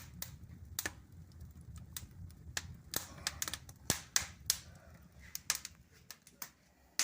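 Wood fire crackling in the firebox of a newly built fireplace: sharp, irregular snaps, a few of them louder, over a low steady hum that drops away about six seconds in.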